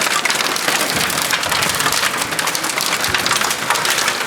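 Hailstones pelting down in a heavy downpour, a dense, steady clatter of countless small impacts.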